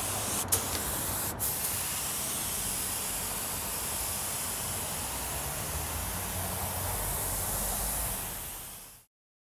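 Compressed-air gravity-feed spray gun hissing steadily as it sprays high-build primer onto a metal cart, with two very short breaks in the first second and a half. The hiss fades out about a second before the end.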